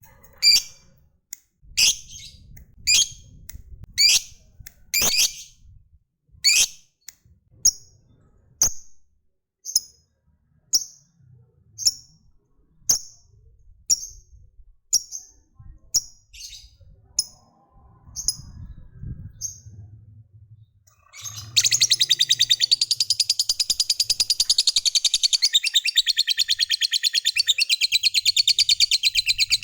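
Lovebird calling: sharp high chirps about once a second, then from about 21 seconds in a long unbroken rapid chattering trill, the prized 'ngekek panjang' song of a lovebird.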